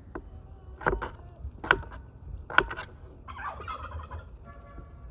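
Kitchen knife chopping raw potato on a wooden cutting board: three sharp strikes a little under a second apart. Then a turkey gobbles briefly in the background.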